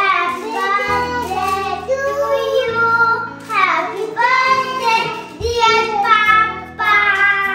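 A child's high voice singing a melody over instrumental backing music with steady held bass notes.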